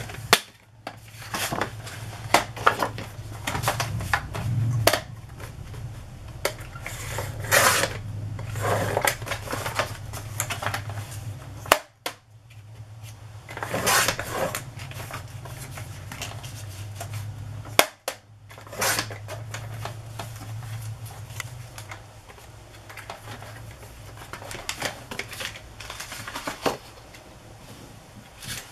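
Sliding-blade paper trimmer being used on cardstock: clicks and clatter as the trimmer and card are handled and positioned, with a few short scraping strokes as the blade carriage is pushed along the rail.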